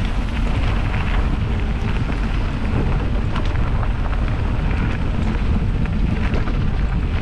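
Wind buffeting an action camera's microphone on a mountain bike ride over a dirt trail, with a steady rumble of tyres on loose ground and scattered clicks and knocks.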